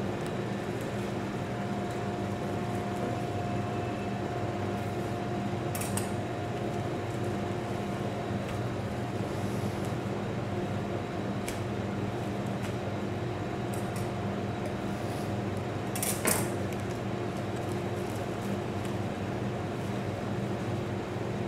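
Steady machine hum with several constant low tones, under a few brief rustles and light knocks of the salmon fillet being handled and wrapped in paper towel and plastic film. The loudest rustle comes about sixteen seconds in.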